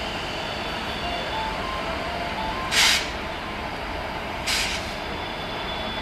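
WAP-4E electric locomotive running as it pulls a passenger train slowly out of the station, a steady rumble. Two short bursts of air hiss come through, the louder a little before halfway and a softer one about a second and a half later.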